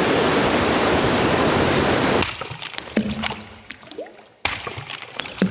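A rain recording playing through studio reverb and echo. A dense, loud rain hiss cuts off abruptly about two seconds in, leaving separate water drips and plinks, some with short rising pitches. A second patch of hiss starts near the end.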